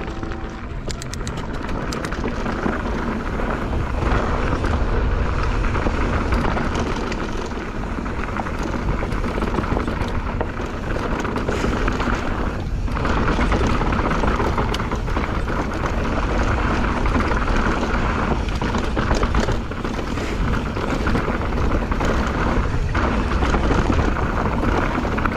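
Mountain bike riding down a dirt trail: a steady rush of wind over the microphone with the rumble of tyres on dirt and rock, and scattered clicks and knocks from the bike rattling over bumps.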